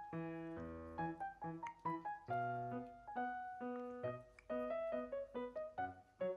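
Background music: a light, bouncy keyboard tune played in short separate notes.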